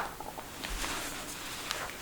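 Human joints cracking: a few small pops and clicks, the sharpest about three-quarters of the way through, over soft handling noise of hands on skin.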